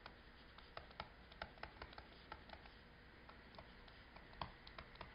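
Faint, irregular ticks and taps of a stylus writing on a tablet screen, several a second, with one louder tap near the end.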